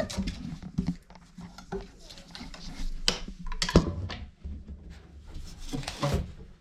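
Five-week-old red nose pit bull puppies whimpering and yipping now and then, mixed with a few sharp knocks or clinks; the loudest come about three and four seconds in.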